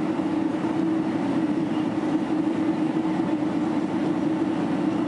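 Steady cabin noise inside a Boeing 767-300 airliner on approach: an even drone of engines and airflow with a strong low hum, unchanging throughout.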